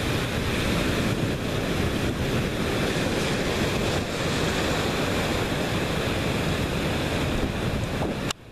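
Heavy surf breaking and washing over a rocky reef, a continuous loud rushing of foaming water with wind on the microphone. It cuts off suddenly near the end.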